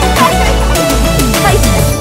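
Background music with a heavy bass and falling, sliding notes.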